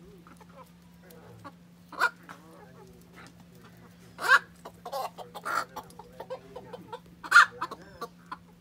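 Silkie chickens clucking, with scattered short calls; the loudest come a little past halfway and again near the end. A steady low hum runs underneath.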